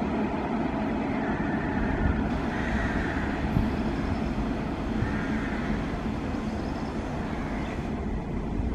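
WAG-7 electric locomotive running light on the track: a steady running noise of the locomotive and its wheels on the rails, easing off slightly towards the end.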